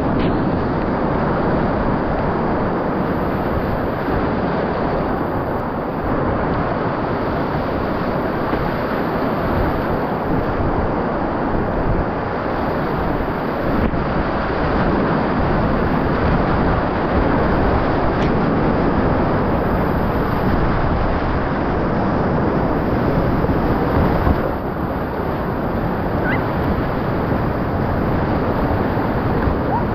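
Whitewater rapids at high water rushing close around a kayak: a loud, steady roar of churning water, dipping briefly about two thirds of the way through.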